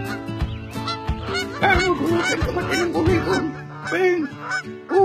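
Cartoon background music with held notes and a regular beat. From about a second and a half in, a run of short pitched calls, each rising and falling in pitch, comes over it in quick succession, then a few more spaced out near the end.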